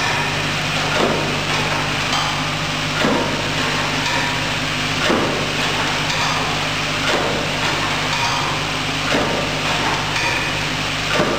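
A cam-driven three-dimensional overwrapping machine runs steadily, wrapping boxes in BOPP film. A constant mechanical hum is broken by a clack about every two seconds as each wrapping cycle strokes, six times in all.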